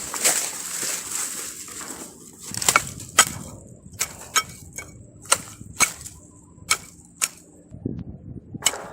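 A rush of hissing noise, then a series of sharp, hard knocks or strikes, mostly in pairs about half a second apart.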